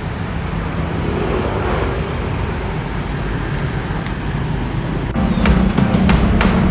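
Steady low rumble of road traffic noise, with a faint steady high whine. About five seconds in, background music with a strong beat comes in over it.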